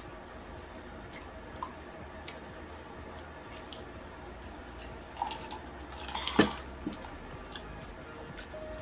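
Drinking from a glass pitcher, with soft gulps and small clicks, then one sharp knock about six seconds in.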